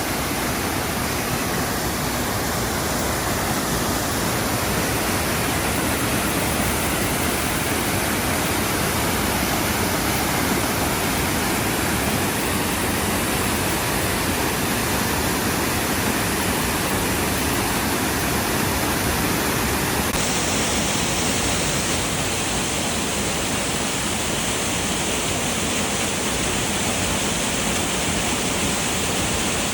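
Steady rushing of a waterfall heard close up, an even wash of falling water. The top end of the sound shifts slightly about twenty seconds in.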